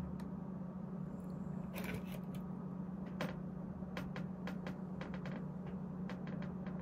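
A cat walking across a desk close to the microphone: scattered faint light clicks and rustles, over a steady low hum.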